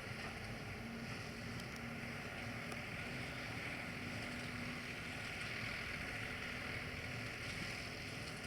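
Tractor engine running steadily with an even hiss of wind noise over it.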